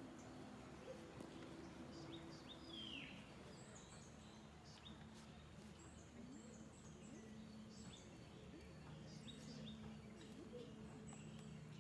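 Faint outdoor ambience of small birds chirping repeatedly: short high chirps throughout, with one longer falling call about three seconds in, over a faint steady low hum.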